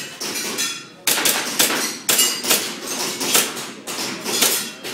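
Airsoft pistol firing a rapid string of shots, about three a second, starting about a second in.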